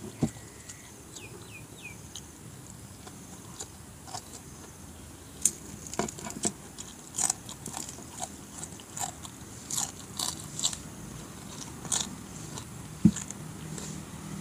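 Close-miked eating sounds: a person biting and chewing with crisp crunches of fried tilapia. The crunches come as irregular short clicks, more frequent in the second half.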